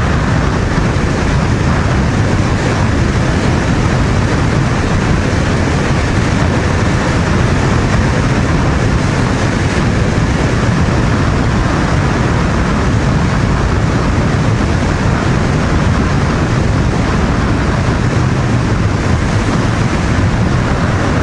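Steady wind rush on the microphone with road noise from a Honda VTR250 V-twin motorcycle cruising at a constant expressway speed, its engine low under the wind.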